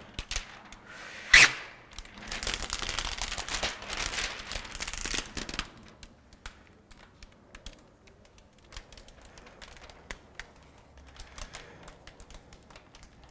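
Protective plastic film being peeled off a large TV screen. There is a sharp snap about a second in, then a few seconds of dense crackling, then scattered crinkles and clicks as the sheet is pulled away and handled.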